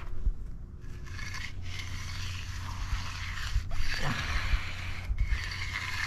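Hand concrete groover (jointer) scraping along a control joint in fresh, broomed concrete, in several strokes with short pauses between them.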